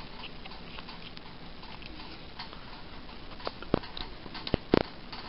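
A few light clicks and taps over a steady hiss, the sharpest ones late on: a cardboard 2x2 coin holder being picked up and handled by fingers.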